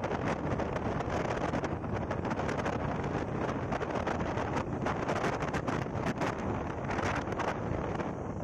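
Steady wind noise buffeting the microphone, a continuous rushing with irregular gusty thumps.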